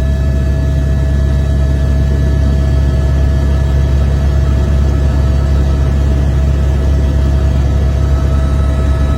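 Helicopter engine and rotor drone heard from inside the cabin, a steady, loud low rumble with a constant whine over it.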